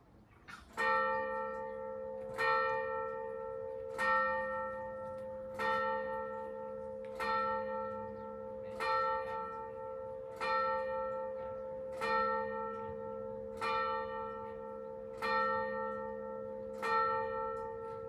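A single church tower bell striking the hour: eleven strokes at one pitch, about one every second and a half, each ringing on into the next. The eleven strokes mark eleven o'clock.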